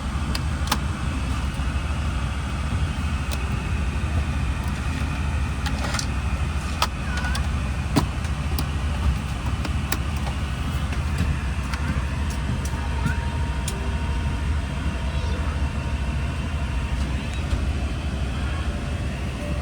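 Steady low rumble of a Boeing 777-300 airliner cabin with its air system running, with scattered small clicks and knocks throughout and one louder knock about eight seconds in.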